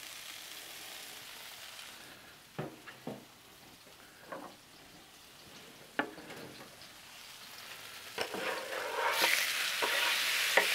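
Olive oil sizzling quietly on a hot Blackstone flat-top griddle, with a few light knocks. From about eight seconds in, diced raw chicken slides off a wooden cutting board into the hot oil and sets off a loud, steady sizzle.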